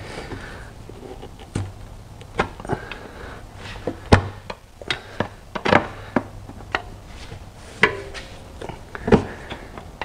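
Screwdriver prying at the aluminium oil pan plate under a Porsche 911 Carrera 4's engine, working it loose from its silicone sealant. The blade slips and catches, making irregular sharp clicks and knocks, about nine of them, spaced unevenly.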